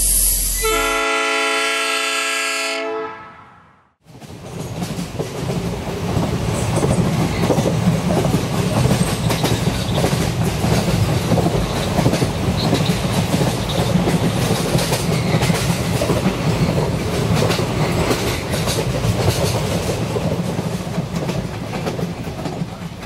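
A train horn sounds about a second in for a couple of seconds and fades away. From about four seconds on, a passenger train runs steadily, its wheels clattering over the rail joints under a continuous rumble.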